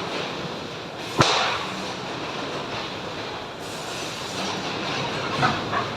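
Steady industrial machinery noise with one sharp loud crack a little over a second in and two smaller knocks near the end.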